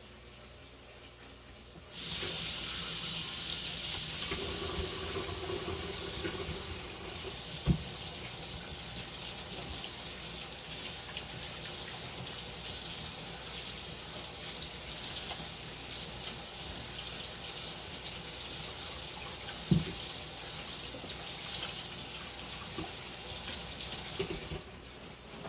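Water running from a tap into a sink, turned on about two seconds in and off near the end, with two short knocks along the way.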